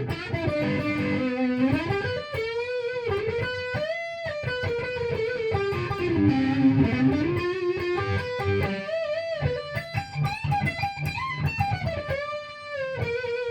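1986 Hamer Chaparral electric guitar played on its neck pickup through distortion. It plays a single-note lead line of held notes with string bends and slides.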